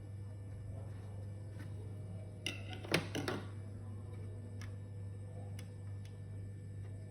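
Small clicks and taps from handling laptop parts, with a short burst of sharper clicks about two and a half seconds in and a few faint single clicks spread around it, over a steady low hum.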